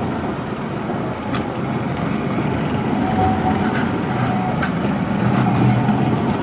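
Škoda 15T ForCity low-floor tram passing close by, its wheels rolling on the rails with a steady rumble and a low hum. Two sharp clicks come through, about a second and a half in and again a few seconds later.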